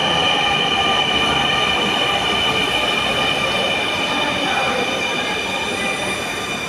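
Dhaka Metro Rail train moving alongside the station platform: a steady high-pitched whine over a broad rumble, slowly fading toward the end.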